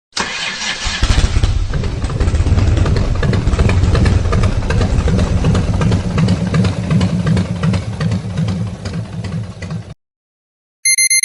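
Harley-Davidson motorcycle's V-twin engine running with a low, pulsing exhaust note, cutting off suddenly about ten seconds in. A short electronic beep follows near the end.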